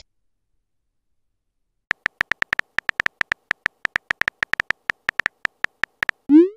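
Typing sound effect of a texting-story chat app: a rapid, uneven string of short beep-like keyboard clicks, starting about two seconds in and lasting about four seconds. Near the end comes a short rising 'pop' as the message is sent.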